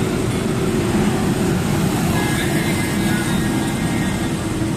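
Truck engine running and road noise heard inside the cab while driving at steady speed, a constant low rumble.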